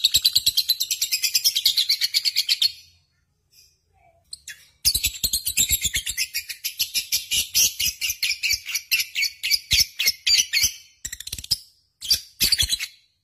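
Lovebird singing a fast, high-pitched chatter of about ten notes a second. It comes in two long runs, broken by a pause of about two seconds, then a few short bursts near the end.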